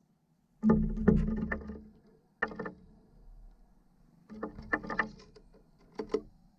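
Eurasian jay pecking at seeds on a wooden feeder floor right by the microphone: four bursts of quick knocks.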